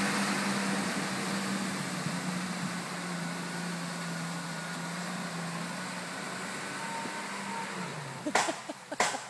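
Jeep Cherokee engine running steadily as it drives away through a muddy pond, growing fainter, its note dropping about eight seconds in. Two sharp knocks close by near the end.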